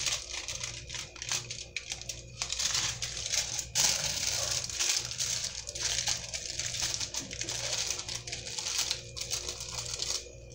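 Aluminium foil crinkling and crumpling in irregular bursts as hands fold over the ends of a foil-wrapped parcel of soft dough and press it shut, with a louder crinkle about four seconds in.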